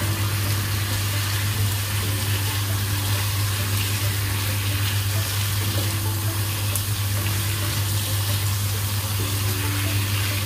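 Sliced carrots, potatoes and green beans sizzling and bubbling in a little water in a frying pan as they are stirred with a spatula, over a steady low hum.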